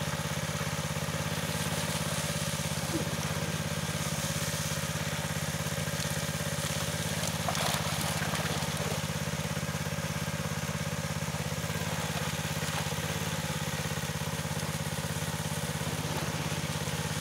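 A small engine running steadily at a constant idle-like speed, with a low hum and a fast even pulse. About eight seconds in, a brief splash of water and fish.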